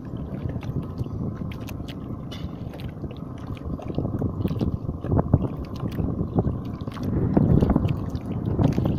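Wind buffeting the microphone over sea water lapping around a small wooden fishing boat, with scattered light clicks and a stronger gust about seven seconds in.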